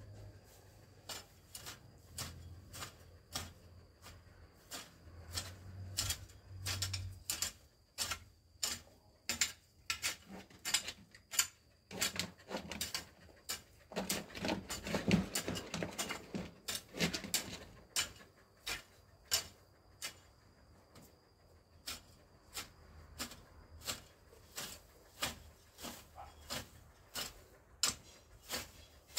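Repeated short scraping strokes of a long-handled garden tool worked through grass and soil, about two or three a second, coming thicker in the middle.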